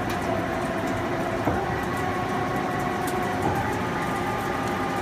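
Cincinnati Milacron Cinturn CNC lathe running under power: a steady mechanical whine over a low hum, with a light knock about a second and a half in and a slight step up in pitch about three and a half seconds in.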